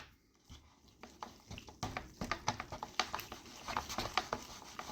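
Light, irregular clicks and taps of a utensil working in a noodle bowl, about three or four a second, starting about half a second in.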